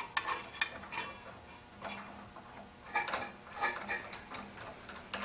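Light metallic clinks, taps and scrapes as small metal parts are handled, with the spark plug being fitted into the burner head of a kerosene torpedo heater. The clicks come irregularly, a cluster about three seconds in being the loudest.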